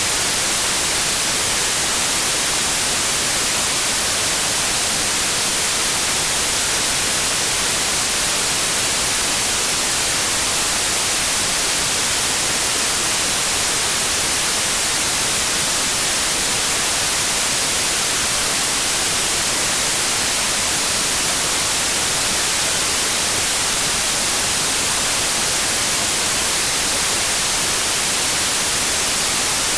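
Steady generated white noise: an even, unchanging hiss, strongest in the high frequencies.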